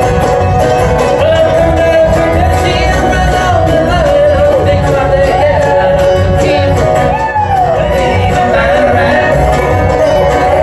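Live bluegrass band playing: banjo, acoustic guitars and upright bass under a held lead line that slides up and down in pitch.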